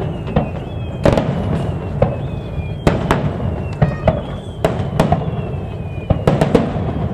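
Fireworks display: aerial shells bursting in quick succession, sharp bangs about one or two a second over a steady low rumble. Faint high whistles sliding down in pitch run between the bangs.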